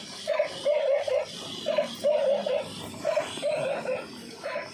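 Battery-operated toy police dog giving electronic barks from its small speaker: a short yap then a longer bark, repeating about every one and a half seconds.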